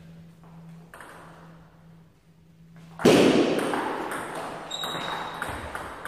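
Table tennis ball clicking off bats and table during a point, over a steady low hum. About three seconds in a sudden loud noise starts and fades slowly, with the ball clicks still coming through it.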